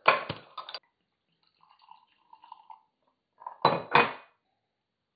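A green swing-top glass bottle of home-brewed kombucha is opened under a towel with a sharp clack and rattle of glass and metal. A faint pour of fizzy liquid through a mesh strainer into a glass follows, then another clatter of glass and metal about three and a half seconds in.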